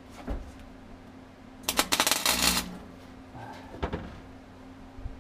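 Wire-feed welder striking a short tack weld on a sheet-steel floor patch panel: a loud burst of arc crackle under a second long, about two seconds in. A couple of faint clicks come before and after it.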